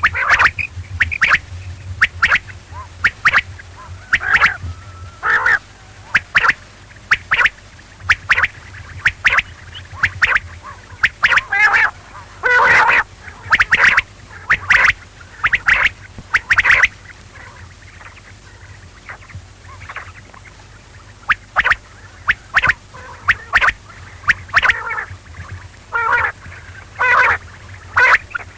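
Quail calling over and over in short, sharp notes, in quick clusters, with a lull of a few seconds past the middle. A low steady hum runs underneath.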